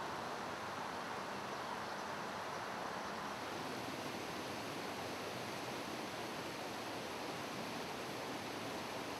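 Steady rush of a shallow mountain torrent running over stones and small weirs.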